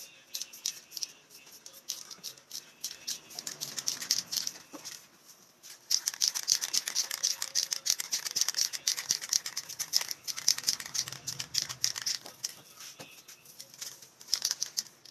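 Aerosol spray-paint can being shaken, its mixing ball rattling in fast, uneven clicks, louder and denser from about six seconds in until near the end.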